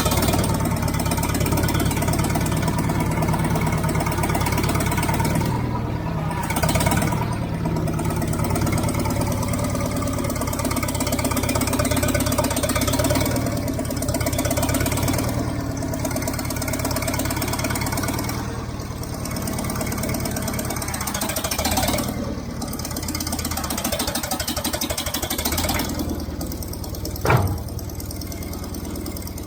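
A small loader's engine running steadily, its note rising and falling a little as the machine works. Near the end there is one short sharp falling squeak.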